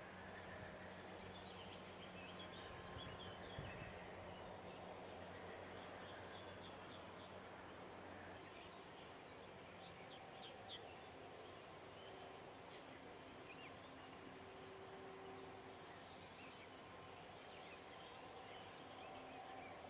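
Faint outdoor ambience with small birds chirping in the distance, scattered short calls throughout. A low steady hum fades out about eight seconds in.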